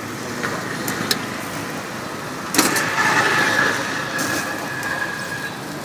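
Street traffic noise, with a louder vehicle sound carrying a steady high whine coming in suddenly partway through and easing off after about three seconds.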